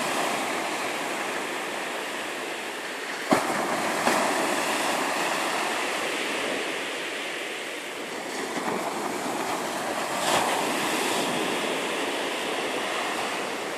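Sea surf breaking and washing up the sand at the water's edge, swelling and easing as each wave comes in, with a single sharp click about three seconds in.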